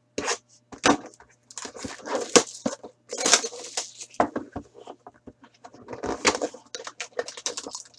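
A trading-card box being opened and handled by hand: irregular rustling, scraping and sharp crinkles and taps of cardboard and card packaging, loudest a little past two and three seconds in.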